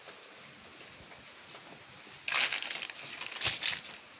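A wrench tightening the motorcycle's rear-axle chain adjuster: two short rasping bursts of rapid metal clicks, the first about two seconds in and the second near the end with a dull knock.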